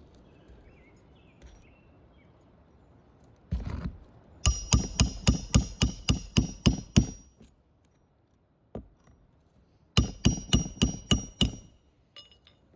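Hammer driving roofing nails into asphalt shingles: a quick run of about eleven strikes at roughly four a second, then a second run of about seven, each with a metallic ring.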